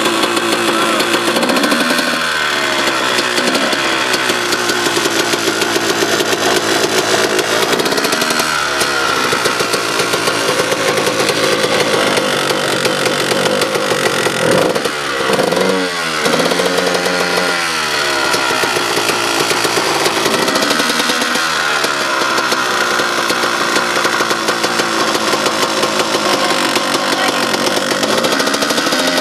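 Dirt bike engine being revved over and over while standing still, the pitch climbing and dropping back every few seconds, with a quick run of short throttle blips about halfway through.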